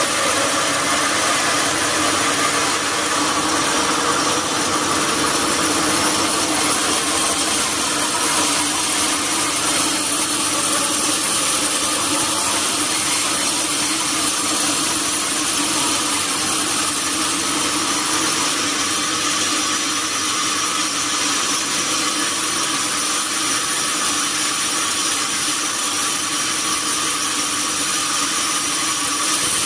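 Sawmill saw running steadily through durian wood: a dense, unbroken machine noise with a steady high whine above it.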